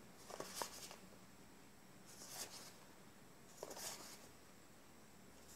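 Faint rustle of Magic: The Gathering cards being slid one at a time off a hand-held stack onto another: three soft swipes about a second and a half apart.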